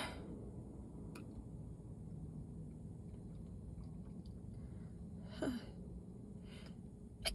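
Quiet room tone with a woman's faint breathing, and one short breathy gasp about five and a half seconds in.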